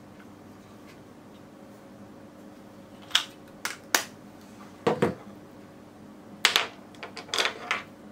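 Handling noise of wired earphones being taken out of a small hard case and unwound: a scatter of sharp clicks and short rubbing scrapes starting about three seconds in, with one duller knock about five seconds in.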